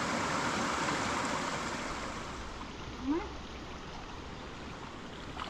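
Rushing river water, a steady hiss that drops lower about two seconds in. A brief rising vocal sound about three seconds in.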